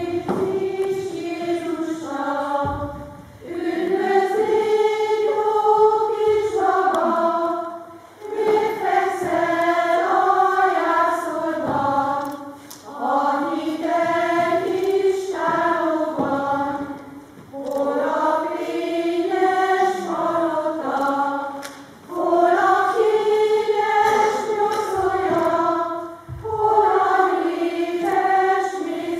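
Choir of women singing in phrases of a few seconds, with brief breaks between them.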